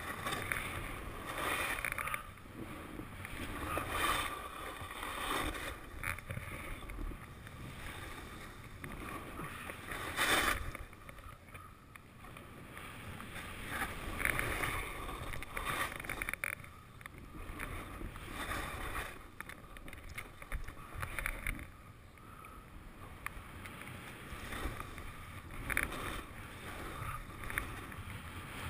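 Skis swishing and scraping over soft spring snow through a run of turns, a surge of sound with each turn and one harder scrape about ten seconds in.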